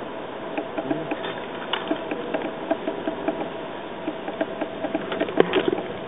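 Female hairy woodpecker pecking at tree bark while foraging: irregular dry taps, a few a second, with a louder cluster near the end.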